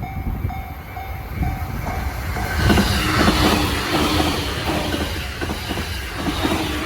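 A Japanese level-crossing alarm rings about twice a second. About three seconds in, a train reaches the crossing and passes, and the rumble and clatter of its wheels over the rail joints rise above the bell.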